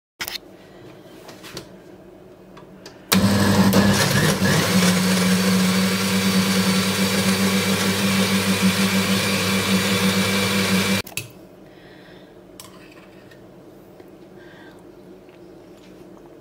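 Countertop jug blender starting about three seconds in and running steadily for about eight seconds, puréeing a thick cooked vegetable soup, then cutting off suddenly.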